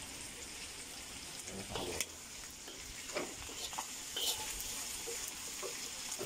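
Chicken and pork pieces sizzling in a steel wok, with a spatula scraping and knocking against the pan a few times as the meat is stirred, starting about two seconds in.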